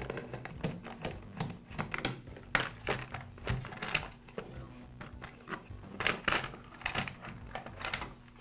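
Irregular small clicks and plastic knocks as the top-cover screws of a Poulan P3314 chainsaw are backed out with a screwdriver and the plastic top cover is worked loose and lifted off.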